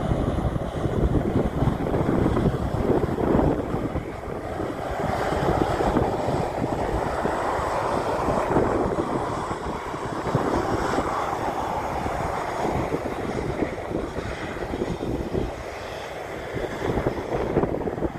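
Boeing 737-800 CFM56-7B turbofan engines at takeoff power during the takeoff roll: a steady, loud jet rush that swells and eases slightly.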